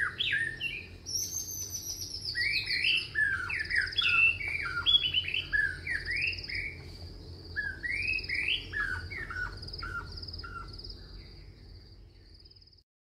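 Birds singing: bright chirping phrases repeated over and over above a steady high trill, fading out near the end.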